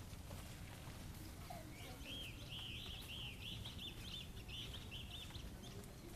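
A bird calling in a quick run of high chirps for about two seconds, over a steady low background rumble.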